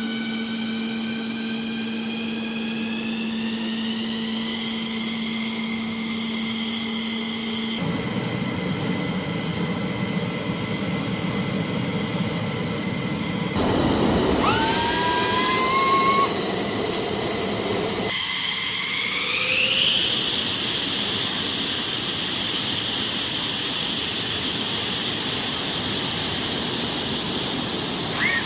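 F-15E Strike Eagle jet engines whining, heard in several shots that cut off abruptly. The pitch climbs as the engines spool up in the first few seconds. It climbs again in the loudest stretch, a little past halfway, and once more a few seconds later.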